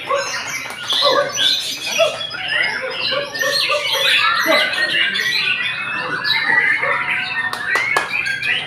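White-rumped shama (murai batu) singing loudly and continuously: a fast run of varied whistles, chirps and warbling glides, overlapped by other songbirds. A few sharp clicks a little before the end.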